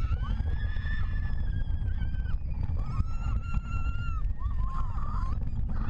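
Roller coaster riders screaming: two long, high, held screams, then shorter wavering ones near the end, over a constant low rush of wind on the microphone.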